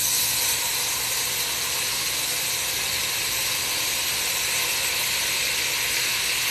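Red wine poured into a hot Dutch oven, sizzling and hissing steadily as it hits the hot pan and flashes to steam: deglazing the browned bits left from searing the roast.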